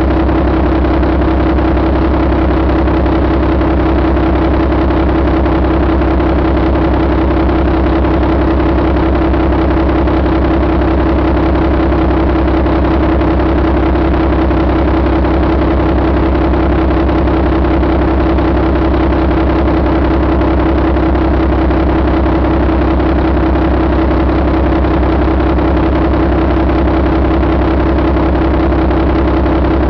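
2015 Mack MP7 inline-six diesel engine running steadily at idle, with an even, unchanging note.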